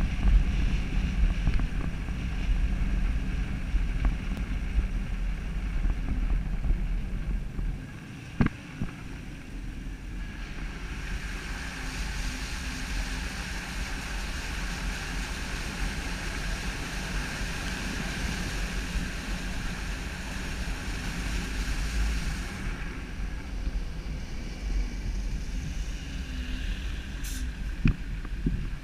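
Vehicle driving through a flooded street: wind buffets the microphone over a low road rumble at first, then from about ten seconds in a steady hiss of water spraying off the tyres as it ploughs through deep standing floodwater, easing off a few seconds before the end.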